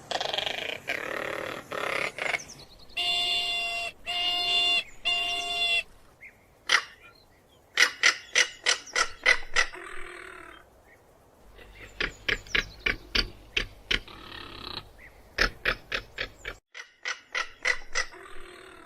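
Crested caracara calling: harsh rasping calls at first, then three clear, evenly spaced pitched notes, then several runs of rapid, dry clicking rattles.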